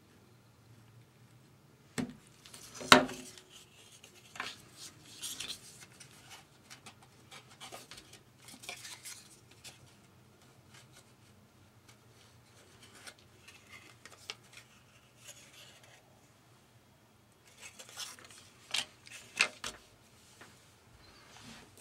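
Paper strips being handled on a cutting mat: light rustling and sliding with scattered taps, the sharpest knock about three seconds in and a quick cluster of clicks near the end.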